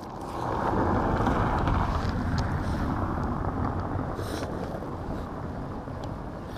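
Wind rumbling on the microphone, swelling about a second in and slowly easing off, with faint rustles of a rope being hauled in hand over hand.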